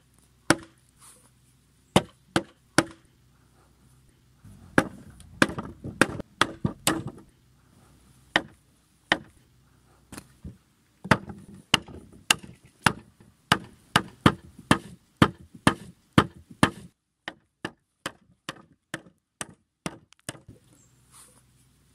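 A hand tool striking wood in a long series of sharp knocks, as a toy cart is knocked together from boards. The blows are scattered at first, settle into a steady run of about one to two a second in the middle, and turn quicker and fainter near the end.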